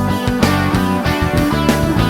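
Background music: an upbeat guitar-driven track with a steady beat.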